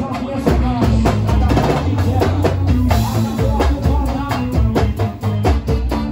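Live pagode baiano band playing a dance beat: loud drums and percussion over a heavy bass line, with guitar and keyboard.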